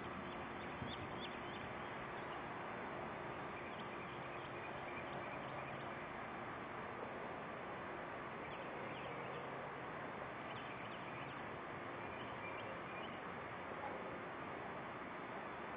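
Steady background hiss with faint, scattered high chirps of small birds.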